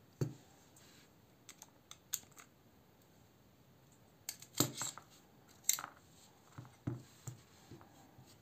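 Scattered small metal clicks and clinks as an Eafengrow EF966 folding knife is taken apart: a Torx screwdriver works the pivot screw, then the blade and pivot washers come off the handle and are set down. The loudest clinks come in a cluster about halfway through and again a second or two later.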